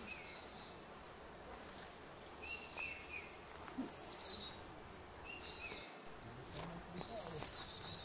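Wild birds chirping in trees: short high calls repeated over a faint outdoor hiss, with a quick trilled run about four seconds in and another near the end.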